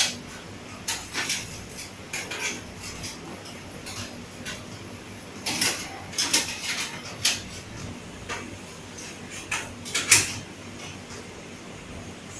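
Dishes and cutlery clinking and clattering on and off, in short scattered bursts, the loudest clatter about ten seconds in.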